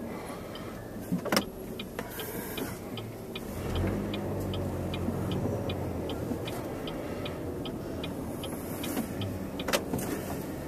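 Chevy Cobalt cabin while driving: steady engine and road noise, with a turn signal ticking at an even pace for several seconds from about two and a half seconds in, and two sharp clicks, one near the start and one near the end.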